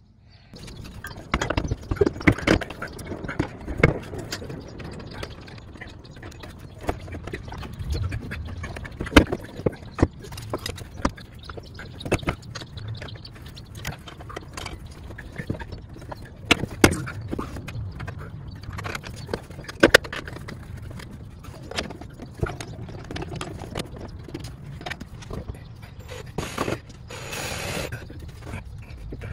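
Hand-tool work on a steel trailer hitch under a car: irregular metallic clicks, knocks and ratcheting. Near the end a cordless drill bores up into the car's floor pan.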